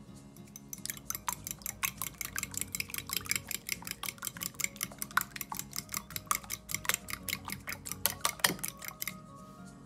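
Metal fork beating two eggs in a glass bowl: quick clinks of the fork against the glass, several strokes a second, starting about a second in and stopping near the end.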